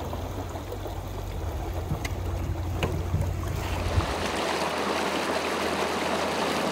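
A boat's motor runs with a low, steady, fast-pulsing rumble over water noise, with a few light knocks. About four seconds in the motor fades out and a steady rushing of water takes over.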